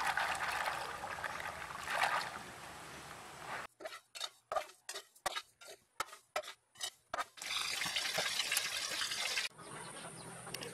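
Water sloshing and trickling as a woven basket of harvested peanuts is rinsed in river water. About four seconds in, this gives way to a rapid run of short strokes, about three a second, of rice being stirred as it dry-roasts in a metal wok for rice coffee. After that comes a steady rush of noise.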